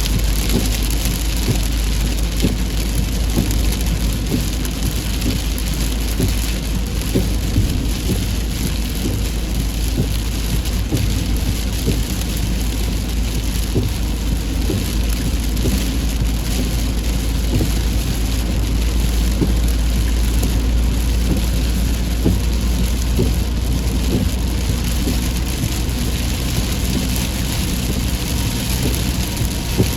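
Heavy rain falling steadily, with many separate drops striking a nearby surface over a constant low rumble.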